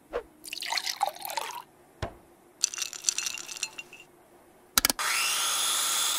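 Cartoon kitchen sound effects: a short liquid-like swish, a knock and a run of glassy clinks, then a click and a blender motor starting up about five seconds in, with a rising whine before it runs steadily.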